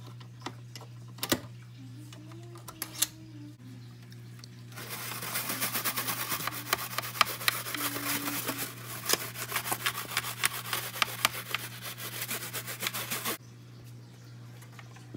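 Toothbrush bristles scrubbing fast over the plastic vent grille of an Xbox One top shell, a dense scratchy rasp full of small clicks that starts abruptly about five seconds in and stops abruptly near the end. Before it come a few light clicks.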